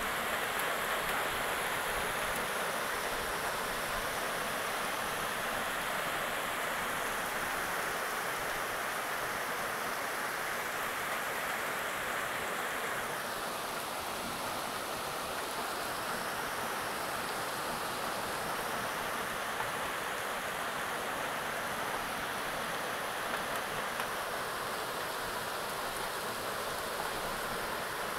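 Heavy rain and hail pouring down in a steady, dense hiss, its tone dulling slightly about halfway through.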